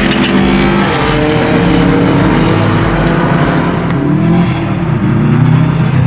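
Subaru Impreza WRX STI's turbocharged flat-four engine running hard as the car drives past, the engine note rising and dropping back a couple of times.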